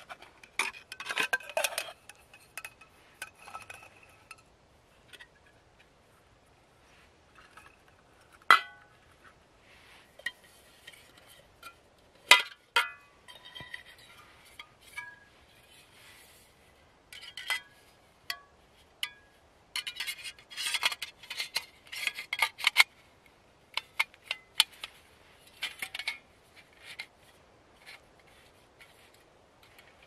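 Irregular clinks and knocks of hard objects, some leaving a short ringing note, in scattered bursts with quiet gaps between.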